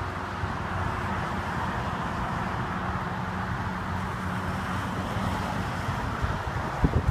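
Steady low hum of a stationary car with wind noise on the microphone; a few short knocks near the end.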